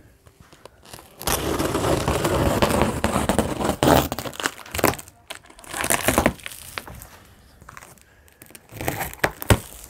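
Packing tape being ripped off a cardboard shipping box: one long tearing pull starting about a second in, then shorter rips. A few sharp knocks on the cardboard come near the end.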